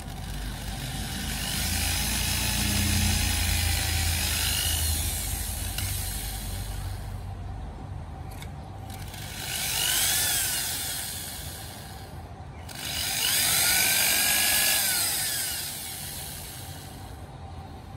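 Electric drill running in three spells, the first the longest, its pitch rising and falling as the trigger is squeezed and eased, with the bit grinding into the tip of a wooden slingshot fork through its metal end cap.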